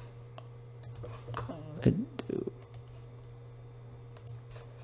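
A few sharp computer mouse clicks, spaced out, as a chart's annotation tool is picked, over a steady low electrical hum. A brief louder sound comes about two seconds in.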